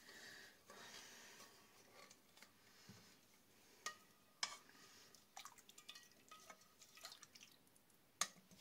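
Last of the meat broth trickling and then dripping from a tipped pot through a plastic sieve into a pot below: a faint trickle in the first second, then a few separate drips.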